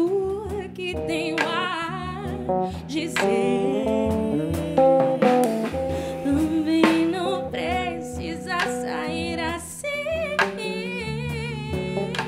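Live trio of female voice, bass and drums: the singer holds long wavering notes and runs with vibrato over a plucked bass line and drum hits.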